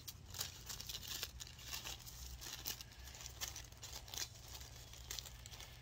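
White tissue paper crinkling as it is handled and folded, a run of soft, irregular rustles.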